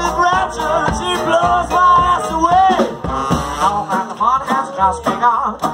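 Live hot-jazz band playing, a lead melody line gliding and bending in pitch over the rhythm section.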